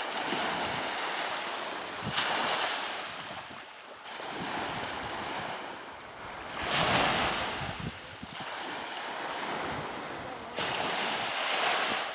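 Sea surf: waves breaking and washing up the shore, swelling and ebbing every few seconds, with some wind on the microphone.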